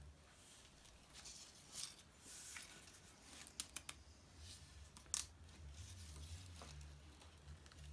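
Faint rustling and a few light, sharp clicks of handlebar bar tape being stretched and wrapped around a road bike's handlebar by hand.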